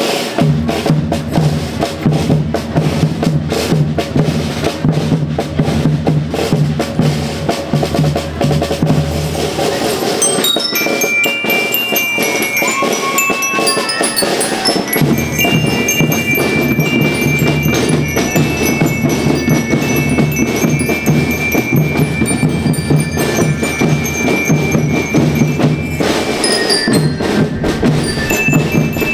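School rhythm band playing. Drums alone at first, then high-pitched melody instruments join about ten seconds in, over the continuing drum beat.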